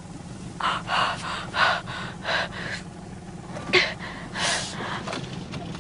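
A person breathing hard in quick, excited gasps, about five or six in a row, then a sharper catch of breath and a longer breathy exhale about halfway through.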